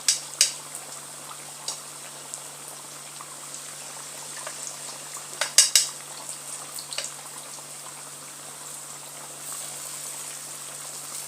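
Battered potato slices deep-frying in hot oil: a steady sizzle, with a few sharp clicks near the start and again about halfway through.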